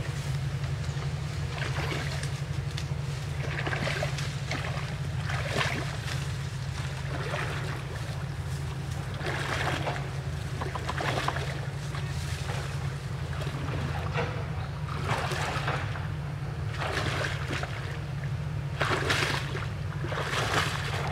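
Water splashing and sloshing as a person wades through a muddy ditch, in repeated surges every second or two, over a steady low rumble.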